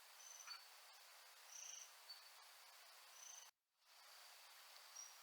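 Faint steady high insect trill with four short high bird chirps spread through it. The sound cuts out completely for a moment about three and a half seconds in.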